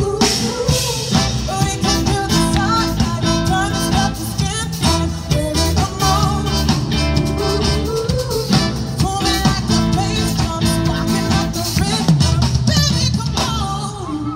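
Live band playing a rock-style number with drums, guitar and a singer.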